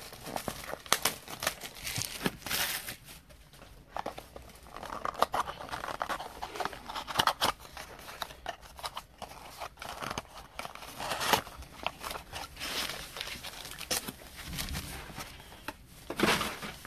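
A trading-card mini box being torn open and its foil card packs crinkling in the hands: an irregular run of tearing, crackling and rustling packaging.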